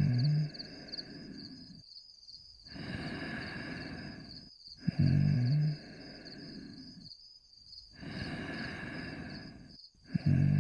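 Snoring in slow, regular breaths: a loud short snort about every five seconds, at the start, in the middle and near the end, each followed by a longer, softer breath and a short pause. A faint high pulsing tone runs underneath.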